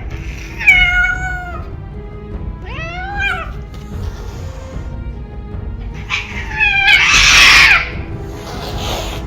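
Cats yowling and caterwauling: three long wavering yowls, the last running into a loud, harsh screech about seven seconds in. Background music plays underneath.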